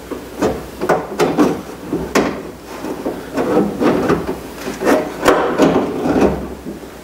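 New manual window regulator being worked into a 1996 Ford F-150 door: irregular metal clunks and scraping as the regulator's arm and gear sector knock and rub against the door's inner sheet metal.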